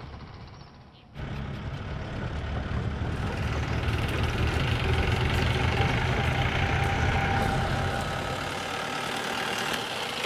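A vehicle engine running: a steady low rumble that cuts in suddenly about a second in and eases off near the end.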